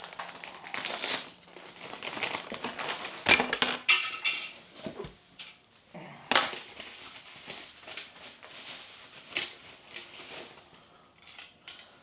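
Plastic packaging bag being torn open and rustled, with metal mounting plates clinking against each other as they are taken out; a few sharp clinks stand out, the loudest a few seconds in.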